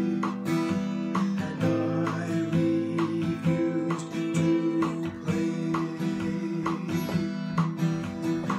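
Taylor acoustic guitar strummed in a steady rhythm, its chords ringing on between strokes.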